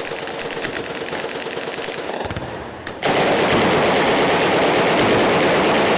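Heavy machine gun firing sustained rapid automatic bursts, becoming much louder and denser about three seconds in.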